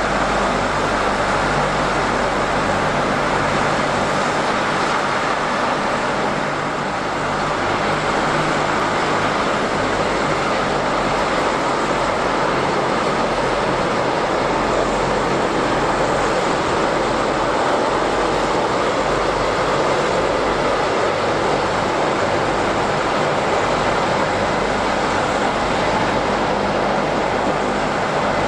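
LCAC air-cushion landing craft running on its cushion: its gas turbines, lift fans and ducted propellers make a loud, steady rushing drone.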